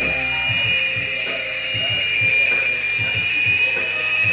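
Tiny electric motors and rotors of a toy indoor infrared helicopter whining steadily at a high pitch in flight.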